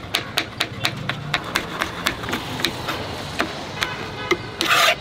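Kitchen knife slicing green bell pepper on a plastic cutting board: quick, even taps about four a second, slowing in the last couple of seconds, with a short louder rasping noise near the end.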